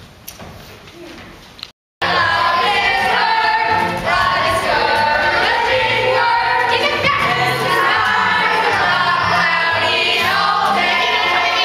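Many voices singing together in chorus to an acoustic guitar, starting abruptly about two seconds in; before that only faint scattered room sound.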